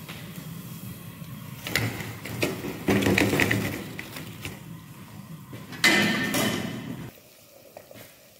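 Metal clatter of a wire spider strainer knocking against the frying pan and tray as deep-fried manchurian balls are lifted from the oil and tipped out, several knocks with the loudest about six seconds in. It goes much quieter after about seven seconds.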